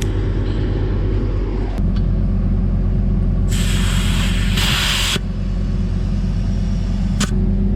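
A motor runs steadily throughout. About three and a half seconds in, a loud hiss of compressed air lasts about a second and a half: air going into the low front-loader tire.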